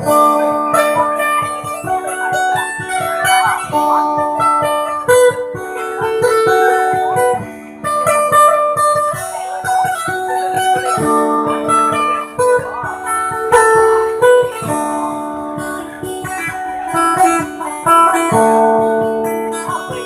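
Sape', the Dayak plucked boat-lute of Borneo, playing a traditional tune: a quick picked melody over steady low drone notes.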